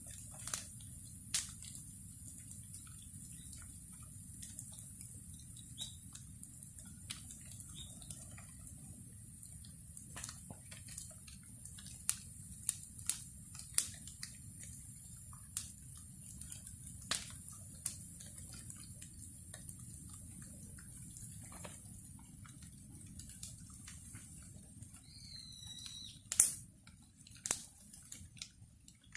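Wood bonfire crackling, with irregular sharp pops and snaps over a steady low rumble of the burning fire. A brief high chirp sounds near the end.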